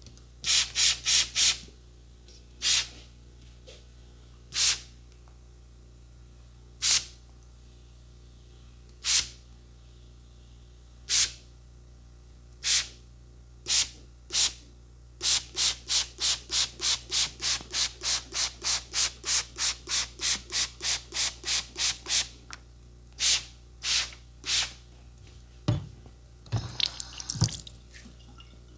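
Hand trigger spray bottle squirting water in short hissing puffs: a quick cluster at first, then single squirts every couple of seconds, then a fast run of about two a second. Near the end come a few knocks and clinks.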